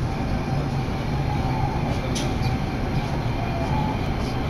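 Subway train running through a tunnel, heard from inside the car: a steady low rumble and rolling noise with a few faint clicks.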